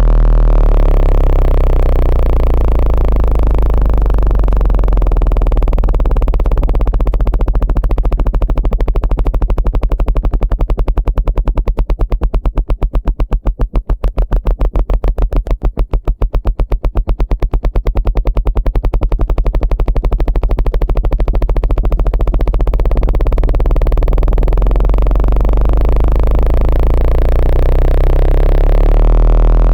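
Loud, low synthesized bass tone of a speaker water-eject sound, meant to vibrate trapped water out of a phone's speaker holes. Partway through it breaks into rapid, even pulses that deepen and then smooth back into a steady tone.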